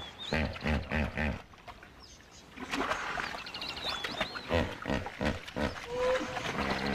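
Hippopotamuses grunting and honking in rhythmic series of deep calls. One run comes in the first second and another from about three seconds in, with birds chirping in the background.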